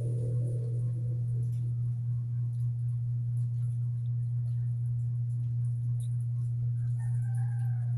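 A steady low hum at one unchanging pitch.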